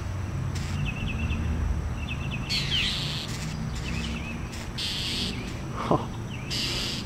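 Northern mockingbirds giving short scattered chirping calls, a few sweeping down in pitch, as they mob a perched hawk: alarm calls from birds defending their nest. A brief sharp sound stands out about six seconds in.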